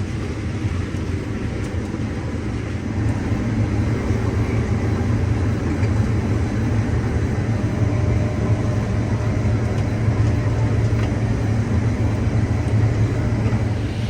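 Combine harvester running while cutting corn: a steady low machine drone with noise on top, a little louder from about three seconds in.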